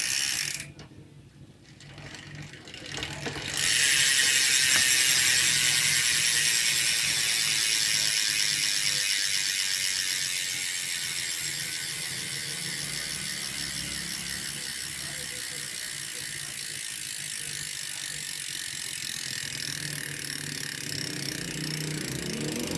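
Quando bicycle rear hub freewheeling, its pawls ratcheting in a fast, dense buzz. The buzz starts suddenly a few seconds in, loudest at first, then slowly fades as the spun wheel coasts down.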